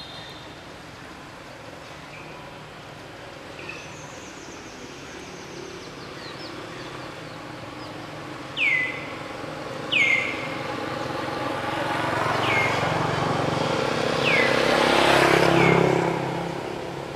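A bird calls a series of five short, sharply falling whistled notes, about one every second and a half. Meanwhile a motor vehicle passes, its engine noise swelling to a peak near the end and then fading.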